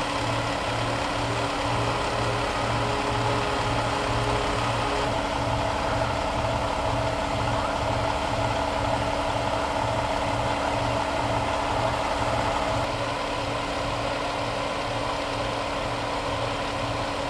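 Pierce Velocity pumper fire engine's diesel engine idling steadily, with a low pulse repeating about twice a second.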